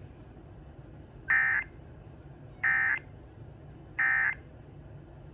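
Emergency Alert System end-of-message SAME data bursts: three short digital squawks about a second and a third apart, the signal that closes the flash flood warning broadcast.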